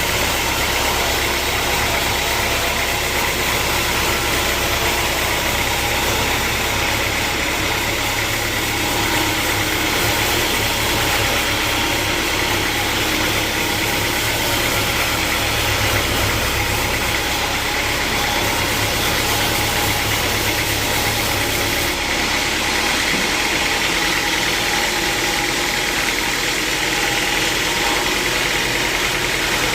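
Sawmill machinery running with a steady, loud mechanical noise and hum. About two-thirds of the way through, the deep hum drops away.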